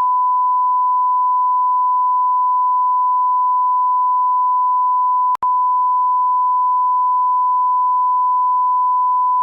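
A loud, steady electronic beep held at one unchanging pitch, like a test tone, broken by a very short gap about five seconds in.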